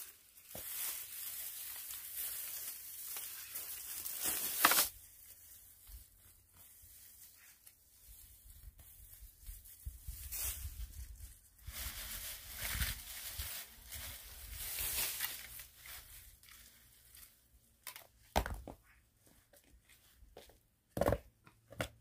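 Dry dead grass and weed stalks being pulled up and torn by gloved hands, a crackling rustle that comes in stretches, with a few sharp clicks near the end.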